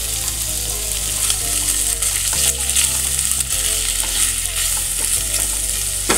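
Dried Bombay duck (bombil) pieces sizzling as they fry in a little oil in a nonstick pan, stirred and pushed around with a spatula.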